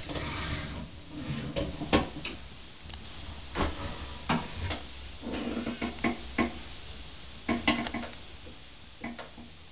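Hand-operated altar-bread wafer press being worked: irregular metal clanks and knocks from its lever and hinged plates, with a short hiss at the start.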